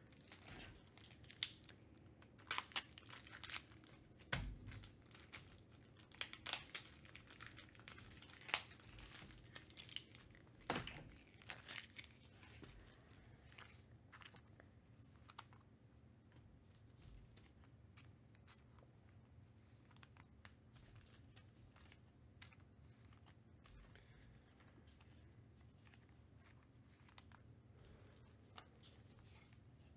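Faint crinkling and tearing of trading-card pack wrappers as cards are handled. There is busy crackling in the first dozen seconds, then only a few scattered clicks.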